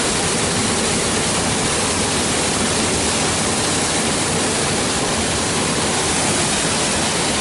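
Close waterfall: the steady, loud rush of falling water crashing down, an even hiss-and-roar with no let-up.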